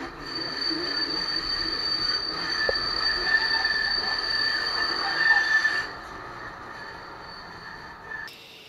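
Tram's steel wheels squealing against the rails: a steady high-pitched squeal over the rolling noise, which stops about six seconds in and leaves quieter running.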